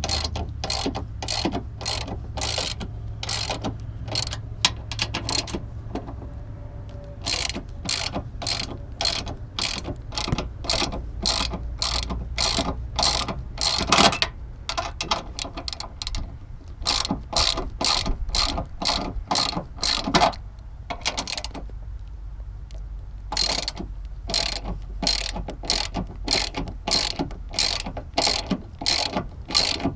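Hand socket ratchet clicking in steady strokes, about two to three clicks a second with a couple of short pauses, as 13 mm strut-tower nuts are turned.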